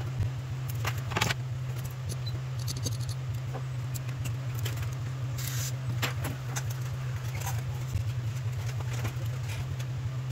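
Small scattered metal clicks and brief scrapes as a hobby-knife blade works at an iPhone camera module's metal bracket and the module is fitted into a small metal holder, over a steady low hum.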